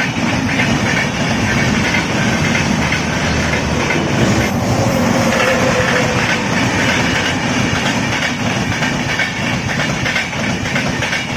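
Indian Railways train running along the track, wheels clattering over the rail joints above a steady rumble.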